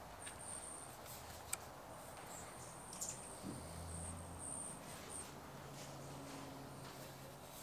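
Quiet handling of an aftermarket car stereo head unit: a few soft clicks and taps as it is lifted and turned over, with a faint high, thin chirping on and off in the background during the first five seconds.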